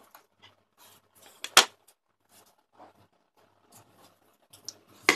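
Handling noises: light rustles and small knocks of things being moved about, with one sharp knock about one and a half seconds in and another near the end.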